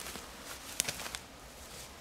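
Faint rustling of nylon sleeping bag and bivouac bag fabric being handled, with a few short crinkles about a second in.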